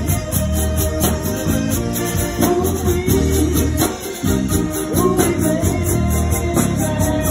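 Live zydeco band playing an instrumental stretch: accordion lead over a rubboard scraped in a steady, driving rhythm, with electric bass underneath.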